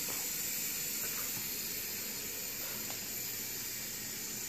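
Steady, even background hiss of room noise, with no distinct events.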